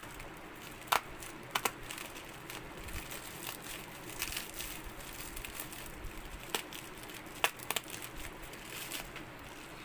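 Bubble wrap around an ink bottle being handled and unwrapped: irregular crinkling and crackling of plastic with sharp snaps here and there, the loudest about a second in and again near the end.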